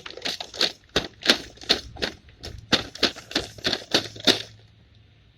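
A hammer striking chunks of dry ice to break them into smaller pieces, in quick sharp blows about four a second, which stop about four and a half seconds in.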